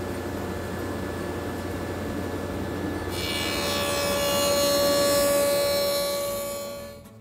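Table saw with a stacked dado blade set running with a steady hum, then cutting a dado across a plywood board: about three seconds in the sound turns much louder and brighter as the blade bites into the wood, and it dies away near the end as the cut finishes.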